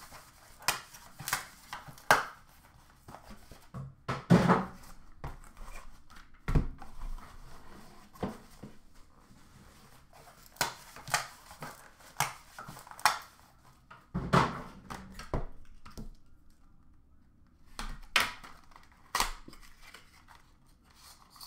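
A hockey card box being opened and unpacked by hand: scattered knocks and taps of cardboard and card holders, with two longer rustles of packaging about four and fourteen seconds in.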